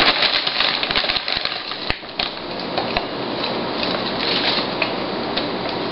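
Plastic bag of peat moss crinkling and rustling as hands work in it and a cup scoops out the dry peat: a dense, continuous run of small crackles.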